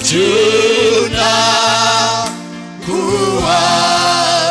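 Gospel worship song sung in Swahili: voices holding long notes with vibrato over bass and drums.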